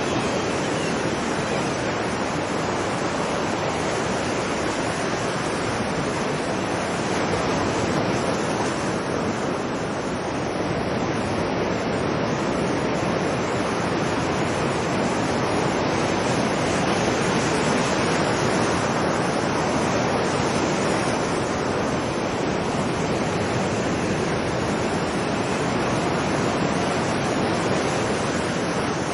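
Ocean surf washing onto a beach as a continuous rushing wash that swells and eases gently, with no single wave standing out.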